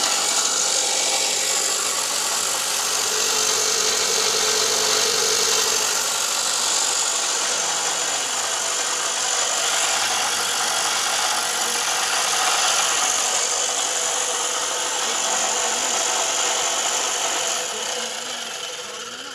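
Homemade cut-off machine (speed cutter), an electric motor belt-driving an abrasive cut-off disc, running and grinding through a metal rod with a loud, steady, hissing grind. Near the end it is switched off and the noise dies away as the disc winds down.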